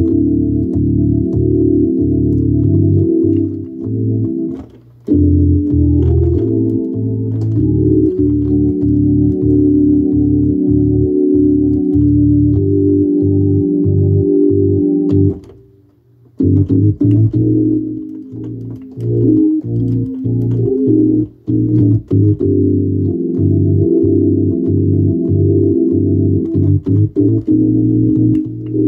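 Hammond organ being played: held chords in a low register over a bass line of short, detached notes. The playing breaks off briefly about five seconds in and again around sixteen seconds.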